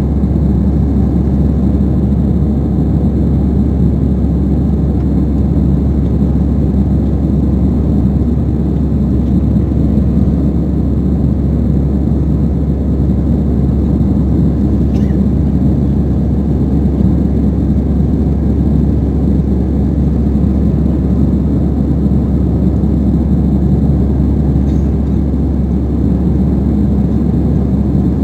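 Steady low drone of jet engines and rushing air heard inside an airliner cabin during the climb after takeoff.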